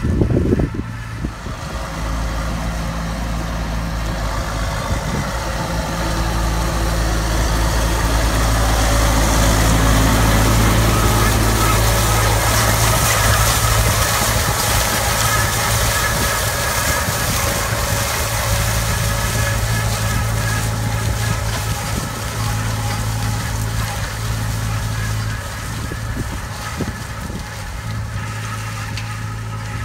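Tractor engine running steadily as it pulls a cotton-stalk pulling machine, with the rustle and rattle of dry cotton stalks being torn from the ground, loudest in the middle.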